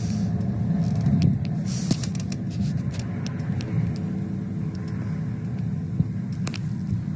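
Steady low rumble of a road vehicle, with a few faint clicks scattered through it.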